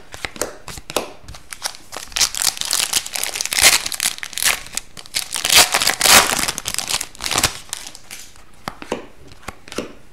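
Foil wrapper of an Upper Deck hockey card pack crinkling and tearing as it is ripped open, for several seconds in the middle. Before and after it come sharp clicks of trading cards being flicked through by hand.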